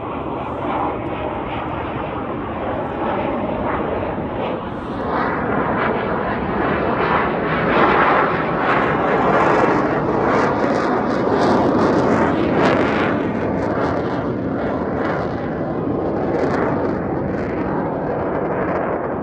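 Military jet aircraft passing overhead on a practice landing circuit, a loud continuous roar with a ragged crackle that swells to its loudest about halfway through and then slowly eases off.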